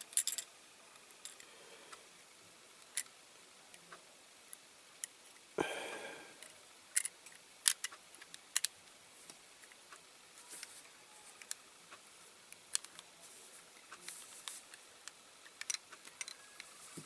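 Small parts of a die-cast toy car being fiddled into place: scattered light clicks and taps of plastic against metal, with one short scrape about five and a half seconds in.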